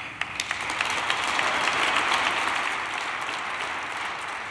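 Audience applauding, swelling to a peak about two seconds in and then tapering off.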